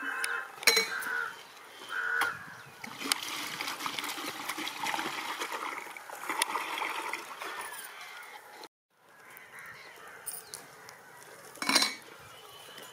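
Birds honking a few times over a stretch of steady hissing noise, with a sharp knock near the end.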